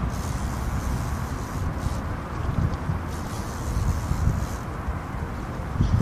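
Strong wind buffeting the microphone: a low rumble that swells in gusts a few times, strongest near the end, over a steady hiss.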